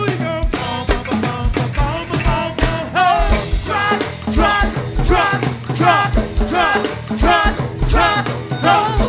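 Go-go band music: a steady drum beat under a bending, pitched melodic line.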